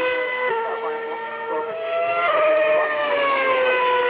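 Formula One cars' 2.4-litre V8 engines passing at high revs, a high multi-toned whine falling in pitch as a car goes by; a second car's whine comes in a little over two seconds in and falls away again.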